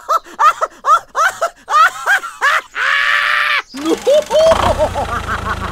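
Very high-pitched voices chattering and laughing in quick rising-and-falling chirps, about three a second, then one held squeal. About four seconds in a steady low hum starts under further chirps.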